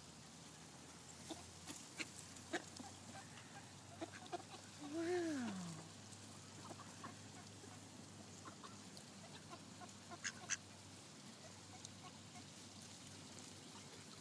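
Mallard ducks at close range: faint scattered clicks and rustles, with one drawn-out call that rises and then falls about five seconds in, and a couple of sharp ticks near the ten-second mark.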